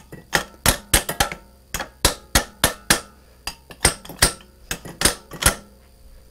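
Small hammer tapping repeatedly, two or three sharp metallic taps a second, on locking pliers clamped to the end cap of a level's vial assembly, trying to drive the stuck cap round. The taps stop about a second before the end.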